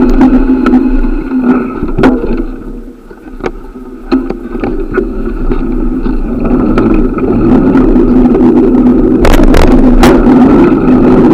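Riding noise of a bicycle in motion: a steady hum and rumble of tyres on the road. It dips briefly about three seconds in, with a few sharp knocks near the end.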